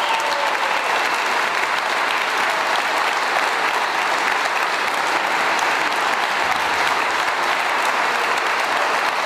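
Large audience applauding, dense, steady clapping that holds at an even level throughout.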